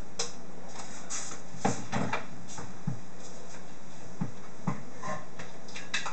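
Scattered light knocks and clicks of kitchen containers and items being handled on a countertop, about ten of them, over a steady low hum.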